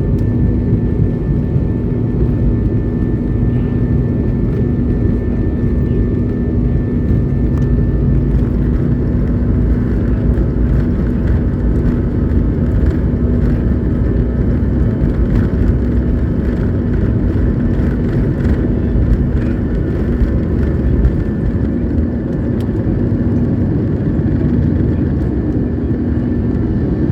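Steady, loud rumble of an airliner's engines and rushing air heard from inside the passenger cabin, with a constant low hum running through it.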